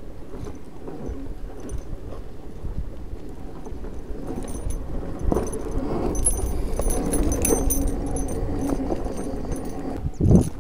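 Zero FX electric enduro motorcycle ridden over a rough dirt track: constant rattling and clattering from the bike over the bumps, with a faint high whine from the electric drive coming and going. Two loud thumps near the end.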